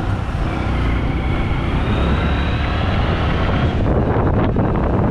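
Motorcycle engine running under way, its note rising steadily as the bike accelerates, with road rumble, heard through a helmet-mounted GoPro's built-in microphone. About four seconds in the engine note fades under gusty wind buffeting on the microphone.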